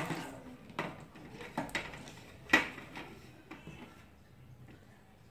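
Handling noise from a plastic-bodied LED tube light and wires being moved and knocked on a tabletop: a string of short knocks and clatters, the loudest about two and a half seconds in, fading to faint rustles after about four seconds.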